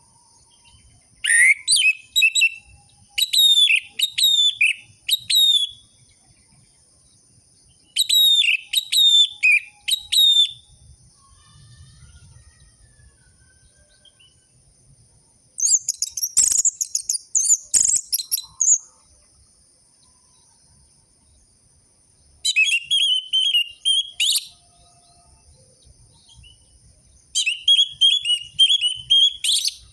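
Orange-headed thrush singing in bursts of a few seconds with pauses between: quick runs of varied whistled notes. Around the middle comes a higher, denser bout, and the last two bursts are rapid repeated notes.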